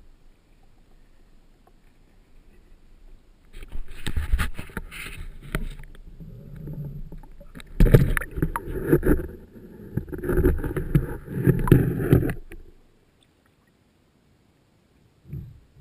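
Water splashing and sloshing in irregular bursts for about nine seconds, then stopping abruptly.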